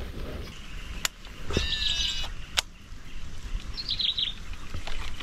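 Birds calling: a short run of high chirps about a second and a half in, and another quick twitter around four seconds. Two sharp clicks are heard, about one second and two and a half seconds in.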